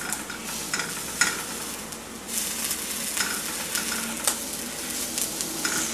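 Halved eggplant frying in vegetable oil in a frying pan: a steady sizzle with scattered small crackles and pops.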